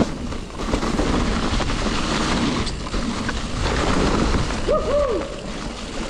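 Mountain bike riding over a trail: a steady rushing noise with many small knocks and rattles from the tyres and bike on rough ground. About five seconds in, two short tones rise and fall.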